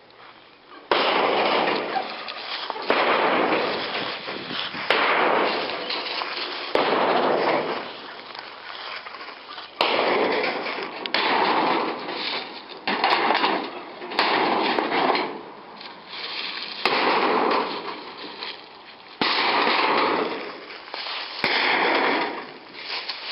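An old feed shed being crushed: a run of irregular crashes and crunching, with sharp cracks and snaps as the structure breaks up.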